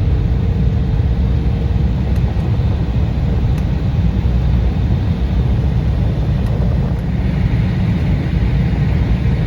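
Steady, loud low rumble inside the cabin of an Embraer 175 airliner: engine and airflow noise heard from a coach seat, with no distinct events.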